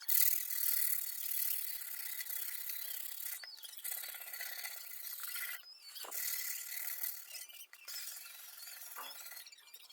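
Cured epoxy resin patch on glass being sanded: steady scratchy rubbing with brief pauses between passes.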